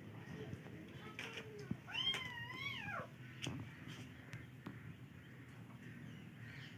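A cat meows once, a single drawn-out call about two seconds in that rises, wavers and then falls away.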